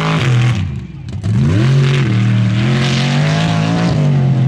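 Big-tire tube-chassis buggy's engine revving hard: the revs climb, drop off briefly about a second in, then climb again and hold high. A rush of flung dirt sounds over the engine.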